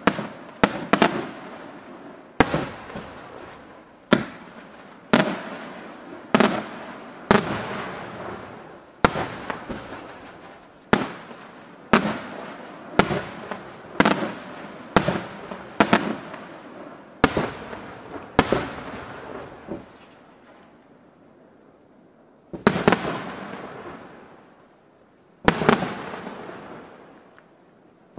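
Aerial firework shells bursting one after another, sharp bangs about once a second, each trailing off in a long fading echo. A lull of a few seconds comes about two-thirds of the way in, then two more loud bursts follow.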